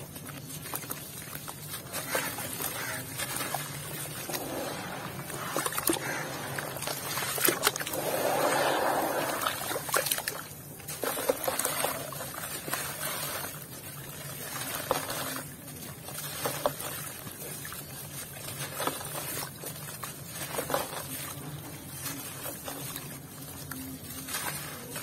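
Hands crushing and crumbling wet, gritty dirt chunks in a basin of water: crunching and crackling mixed with sloshing, trickling water and grit falling into it. It is loudest for about a second and a half a third of the way in.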